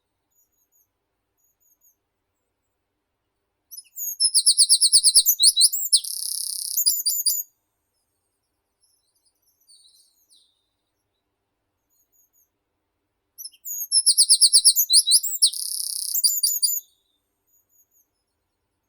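A songbird singing close by, two song phrases about ten seconds apart, each a fast run of repeated high notes followed by a buzzy stretch and a few closing notes.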